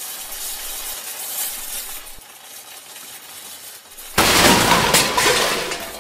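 Cartoon sound effect: a faint hiss, then about four seconds in a sudden loud noisy crash that fades away over about a second and a half.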